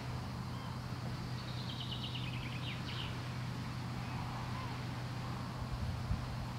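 A songbird gives one rapid trill of short notes stepping down in pitch, lasting about a second and a half, over a steady low hum.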